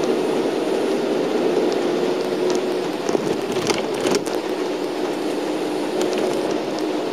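Inside a moving shuttle bus on a wet road: a steady drone from the engine and tyres, with a hiss of water under the wheels. A few brief clicks and rattles come about four seconds in.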